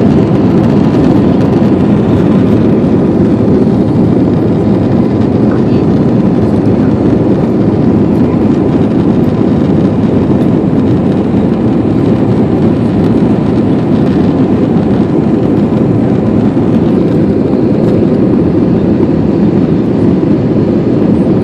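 Airplane engines and rushing air in a loud, steady, unchanging rumble as the aircraft climbs after takeoff, with a faint steady whine above it.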